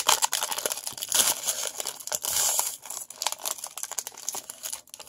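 Foil wrapper of a 2014 Elite Extra Edition baseball card pack crinkling and tearing as it is ripped open by hand: irregular crackles with longer tearing stretches about one and two and a half seconds in.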